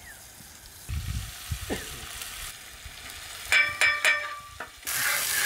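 Onion, garlic, green chili and ginger paste frying in oil on a large iron tawa while a metal spatula works it. The spatula clanks against the griddle a few times with a short metallic ring about three and a half seconds in, then loud sizzling starts near the end.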